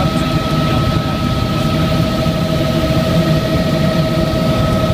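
Helicopter cabin noise in flight: a steady low rumble from the rotor and engine with a constant high whine.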